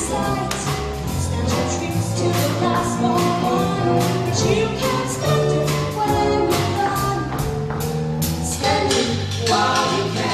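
A group of voices singing an upbeat song together over music with a steady beat.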